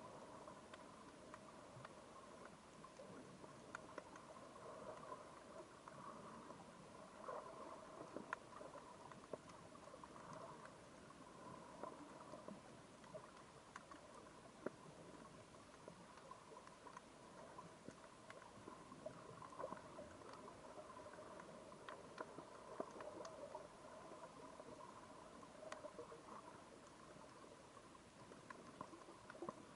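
Faint underwater ambience on a shallow rocky seabed: scattered little clicks and crackles over a faint steady hum.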